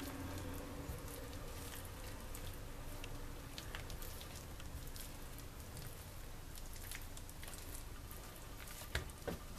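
Faint soft rustles and light taps of hands rolling oiled, cheese-filled yeast dough into a rope on a countertop, over a steady low room hum, with a couple of light clicks near the end.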